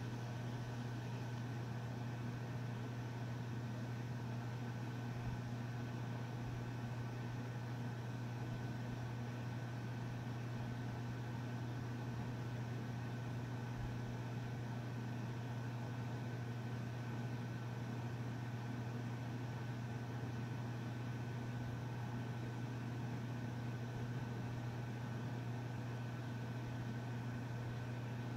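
A steady low mechanical hum with a thin higher tone and even hiss, unchanging throughout.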